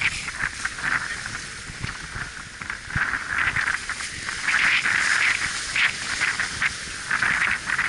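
Sea water rushing and hissing past the hull of a sailing yacht under way, swelling and fading as the waves and foam go by, with wind buffeting the microphone underneath.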